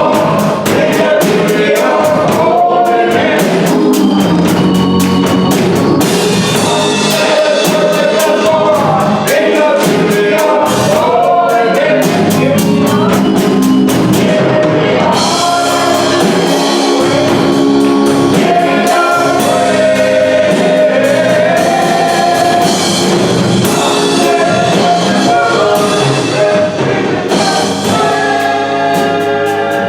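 Gospel music: voices singing over a band with a drum kit keeping a steady beat.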